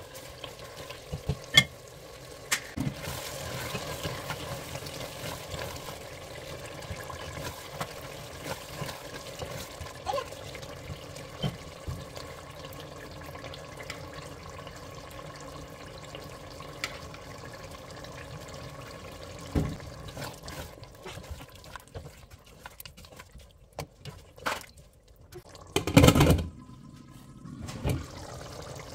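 Mutton and tomato stew simmering in a stainless-steel pressure cooker, with a plastic spatula stirring and knocking against the pot now and then. Near the end come a few loud clatters as the pot's lid is handled.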